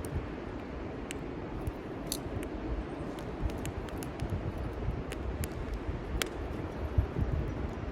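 Wind rumbling and gusting on the microphone, with scattered sharp crackles and pops, likely from a small wood fire burning in a grill fire pit.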